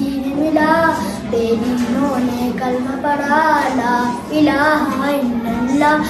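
A boy singing a naat, an Urdu devotional song, solo, in long melodic phrases whose held notes bend and waver.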